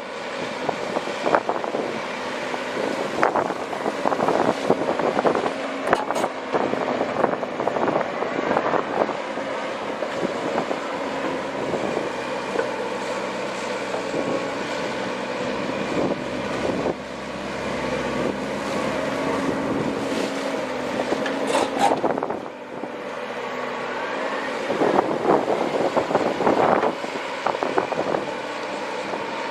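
Komatsu PC130 excavator's diesel engine running steadily under load, with repeated clanks and clatter from the bucket working rock and gravel. The engine note shifts a couple of times as the hydraulics work.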